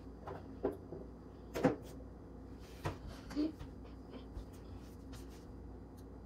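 About five light knocks and taps over the first three and a half seconds, as small toys and a nail-polish bottle are picked up and set down on top of a cardboard box.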